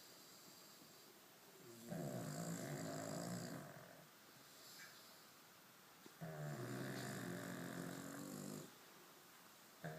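A sleeping pug snoring: two long snores, each about two seconds, a few seconds apart, with quieter breathing between and a third snore starting at the very end.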